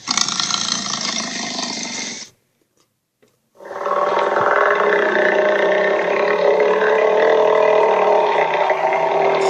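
Monster roar sound effect from an animated film: a loud roar of about two seconds, a second of silence, then a long sustained roar.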